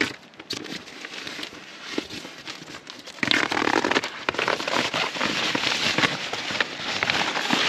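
Nylon fabric rustling and crinkling as a puffy sleeping bag is handled and pushed into a tent: scattered crackles at first, then louder, continuous rustling from about three seconds in.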